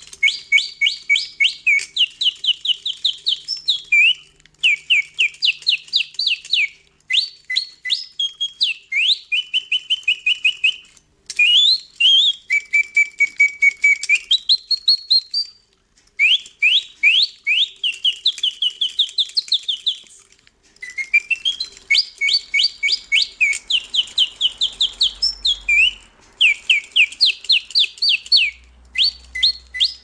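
Antique clockwork singing-bird movement: its bellows blow a whistle whose pitch is swept by cams, giving a bird-like song of quick rising chirps and trills, about four a second. The song comes in phrases, broken by short pauses every few seconds.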